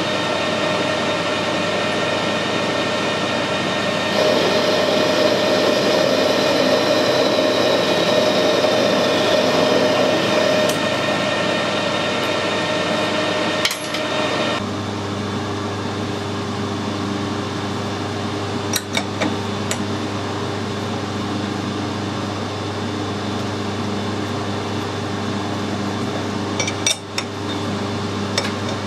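Metal lathe running while a parting tool cuts a spacer off a mild steel bar. A louder cutting noise with a high whine comes from about 4 to 10 seconds in, the whine dropping in pitch as the cut ends. After a sharp click the hum changes and the lathe runs on, with a few light metallic clicks.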